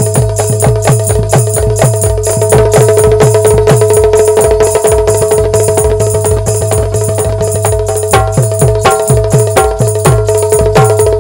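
Folk-music instrumental: a dholak played by hand in a fast, even rhythm of about four strokes a second, its bass-head strokes bending down in pitch, over a steady held note and a bright metallic tick on the beat. Short melody notes join in near the end.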